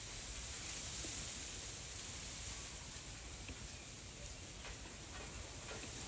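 Steady, even hiss of background noise with a few faint ticks; no parrot call is heard.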